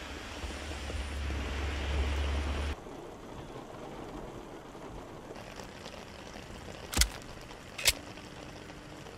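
Heavy rain pouring onto a flooded street with a low rumble, cutting after about two and a half seconds to quieter steady rain and water running along the gutter. Near the end come two sharp hits about a second apart.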